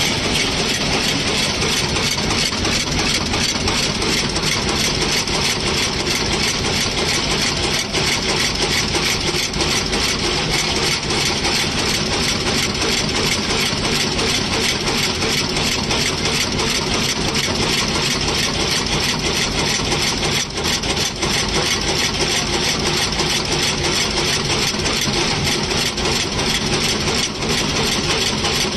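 Radial-lead auto-insertion machine running steadily, with a dense, rapid mechanical clatter as its component chain feeds taped radial parts to the insertion head.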